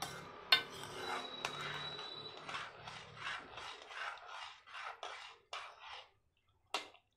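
Metal spoon stirring thick tomato gravy in a metal kadai, scraping the pan in quick strokes about three a second that fade out a second before the end. A sharp clink of spoon on pan about half a second in and another near the end.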